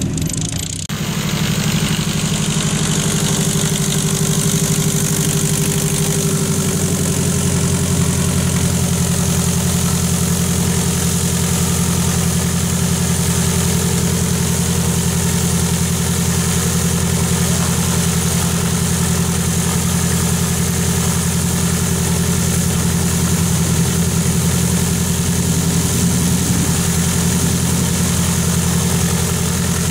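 Lycoming piston engine of a Van's RV-7 homebuilt airplane idling steadily on the ground, propeller turning.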